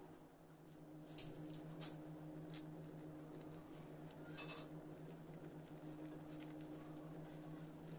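Two sharp metal clicks a little over a second in, from steel serving tongs, then faint scratching of cheese being grated on a flat steel hand grater, over a steady low hum.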